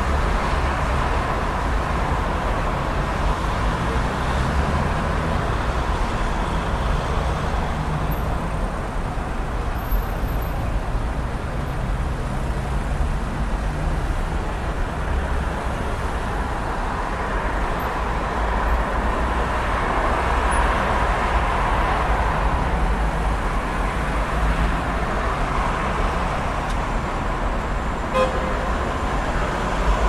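Dense road traffic: a steady wash of engine and tyre noise from many passing cars with a deep rumble underneath. There is a brief car horn toot near the end.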